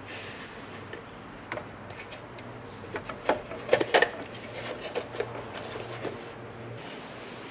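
Small parts of a car instrument cluster being handled and fitted together: a string of light clicks and taps, with the loudest cluster of sharp clicks a few seconds in.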